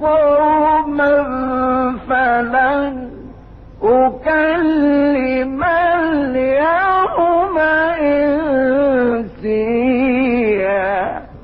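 Quran recitation in Arabic: a single reciter chanting a verse in long, melodic, ornamented phrases, with a brief pause about a third of the way in.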